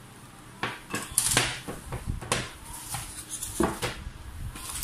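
Speaker packaging being handled: a plastic bag rustling and a styrofoam packing insert rubbing and knocking, in a run of irregular rustles and clatters starting about half a second in.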